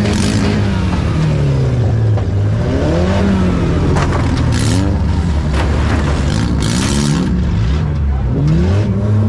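Compact demolition derby car's engine heard from inside the cabin, revved up and down again and again as the car is driven around the arena. Two brief loud rattles cut in, about four and a half and seven seconds in.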